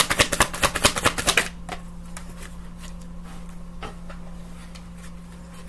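A deck of tarot cards being shuffled, a quick run of crisp card clicks that stops about a second and a half in, followed by a few soft taps of cards over a steady low hum.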